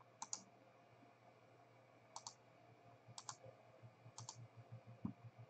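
Faint computer mouse clicks: several quick pairs of clicks about a second apart.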